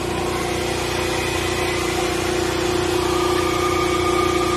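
Hair dryer running steadily with a motor hum and airflow, blowing hot air to melt ice built up in a freezer; a higher steady tone joins in about three seconds in.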